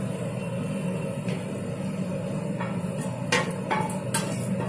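Sugar-water boiling in a wok with a steady bubbling hiss. A metal utensil knocks sharply against the pan several times, mostly in the second half, as roasted vermicelli is scraped in.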